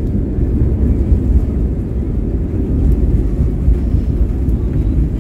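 Steady low rumble of a jet airliner heard from inside the cabin as it rolls fast along the runway, engine and wheel noise blended together.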